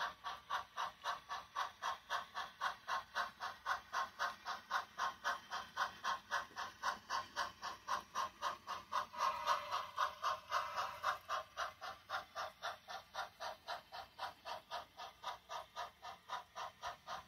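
HO scale model steam locomotive's sound system chuffing steadily at about four beats a second as it pulls its train slowly; the chuffs grow louder for a moment a little past halfway.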